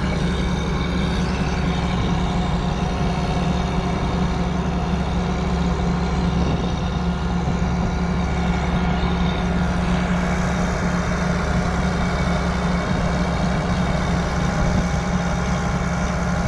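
Engine of a rotary snow-blower truck running steadily at a constant, heavy hum.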